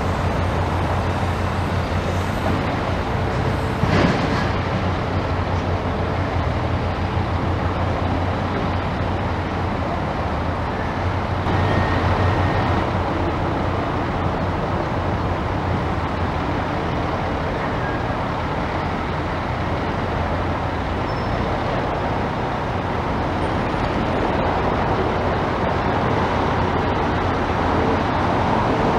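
Steady engine rumble with a general noisy wash over it, and a single sharp knock about four seconds in.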